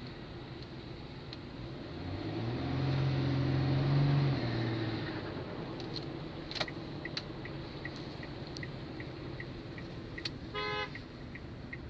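Warm car engine revved up from idle, held with a steady droning tone for about two seconds, then let back down. This is where the owner finds an extraneous noise, which appears only on a warm engine at 2000–3000 rpm. Even light ticking runs through the second half, and a short beep comes near the end.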